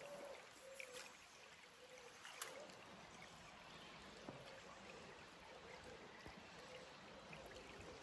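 Faint flowing water of a small river, with a couple of light clicks.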